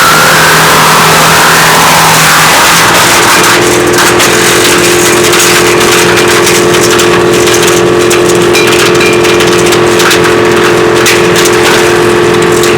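WC 8 woodchipper running at speed: a loud machine hum rising in pitch at the start, then settling about three seconds in into a steady two-tone whine with frequent sharp cracks and knocks over it.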